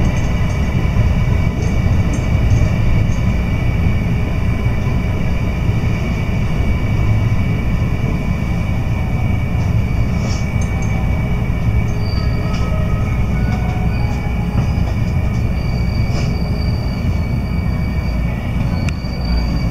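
Electric train heard from inside the carriage as it slows into a station: a steady low rumble of wheels and running gear, with a thin, high brake squeal coming and going in the second half.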